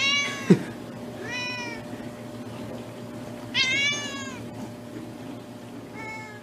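Domestic cat meowing repeatedly: about four drawn-out meows, each rising then falling in pitch, the strongest near four seconds in. A brief loud thump comes about half a second in.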